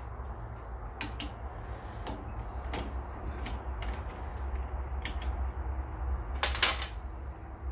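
Metal clinks and light knocks as steel tools and a black iron pipe fitting are handled at a drill press and its vise, with a short louder clatter about six and a half seconds in. A low steady hum runs underneath.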